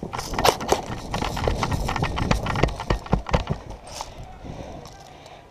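Running footsteps on dirt and grass with jostling gear, irregular thuds over a heavy low rumble that eases off after about three and a half seconds.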